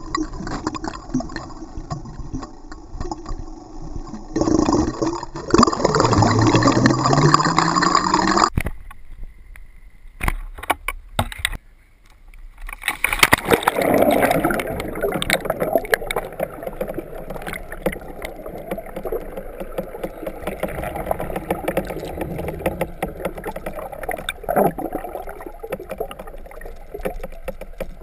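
Muffled water sloshing and bubbling picked up by a camera in a waterproof housing held underwater. About five seconds in, a low hum rises in pitch for a few seconds. The sound cuts off suddenly near the 8-second mark, goes quiet briefly, then the sloshing and bubbling return.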